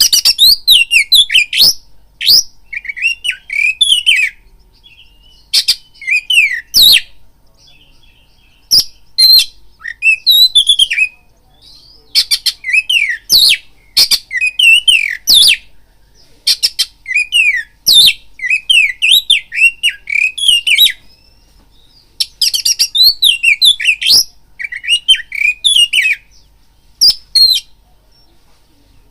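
Oriental magpie-robin (kacer) singing loudly in fast phrases of varied whistles, sliding chirps and sharp clicks, with short pauses between phrases.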